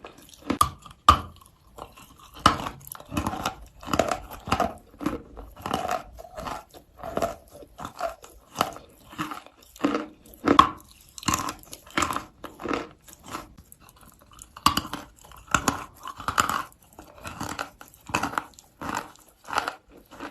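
A person biting and chewing natural chalk close to the microphone: crisp, crackly crunches a few times a second, in bursts with short pauses between bites.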